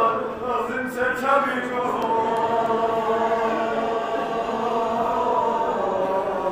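Male voice chanting a Balti marsiya, a mourning elegy, unaccompanied. The notes bend and move during the first couple of seconds, then settle into long held tones.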